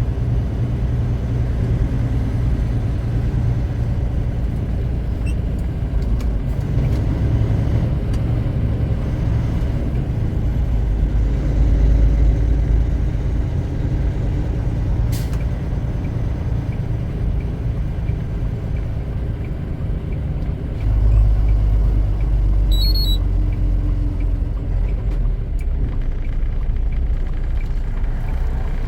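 Semi truck's diesel engine and road noise heard from inside the cab while driving, a steady low drone that gets louder about 21 seconds in. A brief sharp click sounds about halfway through, and a few short high beeps come about two-thirds of the way through.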